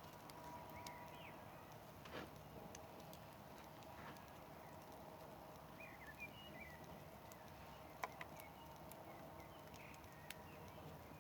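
Campfire burning quietly: a faint hiss with a few sharp wood pops and crackles, the loudest about eight seconds in.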